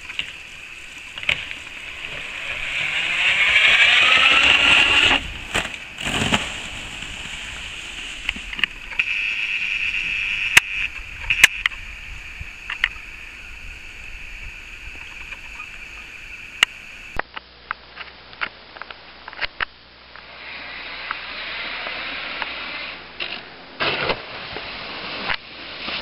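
Ski jumpers' skis sliding down a summer ski jump, several passes, each a hiss that swells and fades over a few seconds, with sharp clacks in between.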